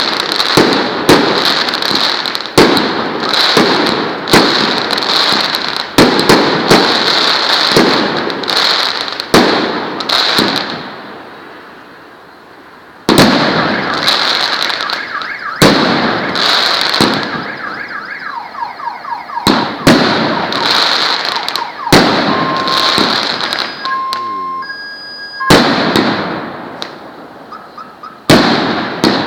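Multi-shot consumer fireworks cake firing a fast string of shots, each a sharp bang followed by crackling. The shots ease off for about two seconds partway through and then resume. A few short beeping tones come through past the middle.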